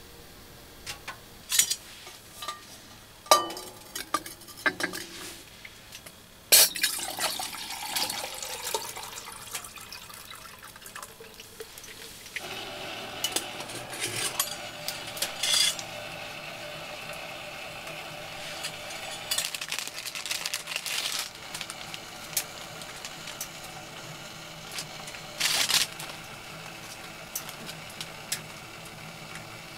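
Metal clinks and scrapes of a long-handled spoon and lid against a metal camp mug of hot water on a stovetop, with liquid sounds as tea is made in the mug. A steady faint hum sets in about a third of the way through.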